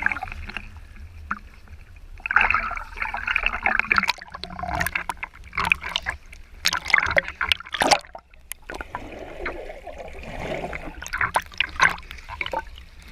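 Waterfall stream water splashing and gurgling in irregular bursts, with many short sharp splashes.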